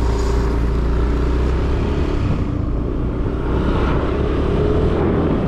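A motor vehicle's engine running steadily while under way, its note rising slowly near the end as it picks up speed, over a steady low rumble.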